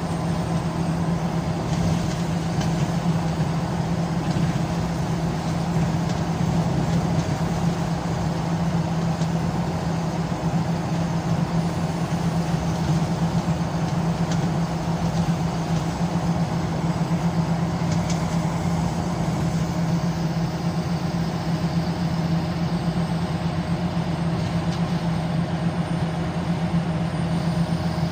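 Scania L94UB bus's diesel engine running with a steady low drone, heard from inside the saloon together with road noise.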